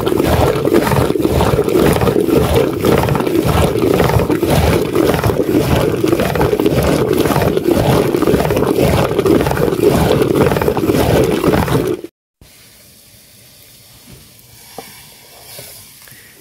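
Milk being churned in a clay pot with a wooden churning stick spun back and forth by a rope: a loud, fast, steady rhythmic sloshing and knocking. It stops abruptly about twelve seconds in, leaving only faint low sounds.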